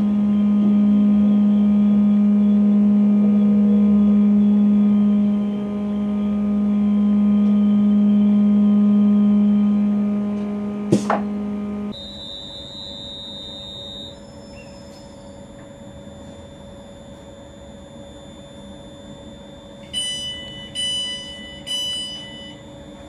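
Steady electric hum of a Class 350 Desiro electric multiple unit, loud for most of the first half, then a brief swish. After an abrupt change the unit is heard standing at a platform with a quieter high-pitched whine, and three short electronic beeps about a second apart come near the end.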